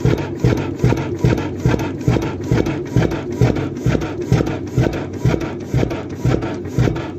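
Krimo single-cylinder 21.9-litre hot bulb oil engine running slowly, a steady rhythmic beat of several strokes a second with a heavier beat about once a second.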